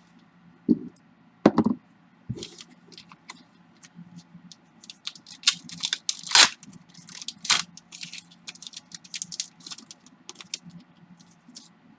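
Baseball card packs being torn open and handled: irregular crinkling, tearing and crackling of the wrappers, with small clicks and scrapes of the cards.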